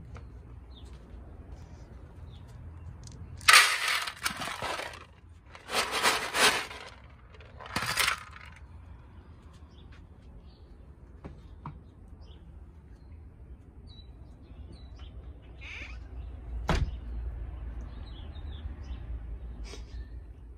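Dry cat food rattling and rustling out of its bag into a foil tray in three loud bursts, against small birds chirping in the background. Later there is a single sharp knock.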